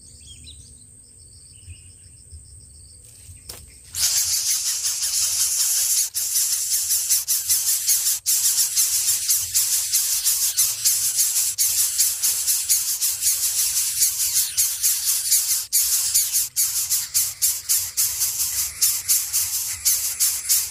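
Greater coucal nestlings begging with a loud rasping hiss that starts suddenly about four seconds in and pulses rapidly.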